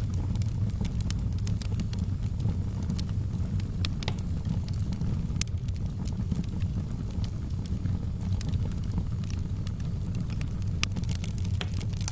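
Wood fire burning in a fireplace: a steady low rumble of the flames with irregular sharp crackles and pops from the burning logs, a few louder pops scattered through and a quick run of them near the end.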